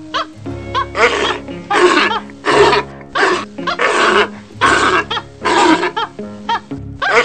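Background music with steady held low notes, overlaid by loud, harsh animal calls that repeat about once a second.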